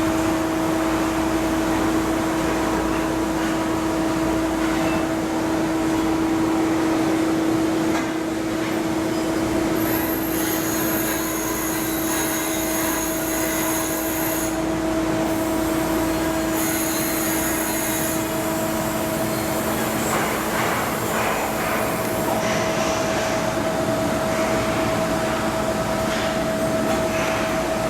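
Steady shipyard machinery noise: a continuous mechanical hum with a constant low tone, and a thin high whine that comes and goes from about ten to eighteen seconds in.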